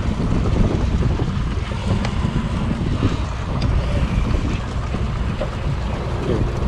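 Steady low rumble of wind buffeting the microphone over the wash of water around a sportfishing boat at sea.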